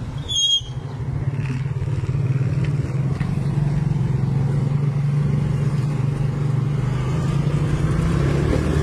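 Small motorcycle engine running steadily on the move, a steady low hum heard from on the bike. A brief high-pitched squeak about half a second in.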